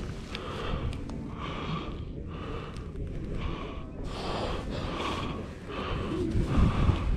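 Quick, rhythmic breathing close to the microphone, about two breaths a second, over a low rumble that grows louder near the end.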